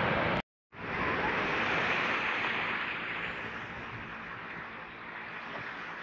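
Surf washing onto a sandy beach: a steady hiss of small breaking waves. It drops out for a moment about half a second in, then comes back and grows softer after about three seconds.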